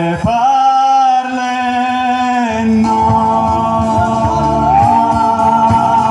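A live band of male voice, acoustic guitar, electric bass and drum kit. The singer holds a long final note over the strings. About two and a half seconds in, the drums come in with a steady beat under a sustained wavering melody line.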